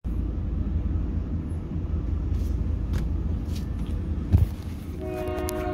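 Steady low rumble with a single thump about four seconds in; near the end a train horn begins to sound, a steady pitched blast.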